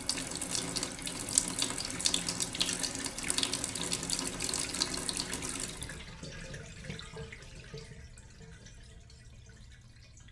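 Heavy rain falling: a dense, crackling hiss that holds steady for about six seconds, then fades away.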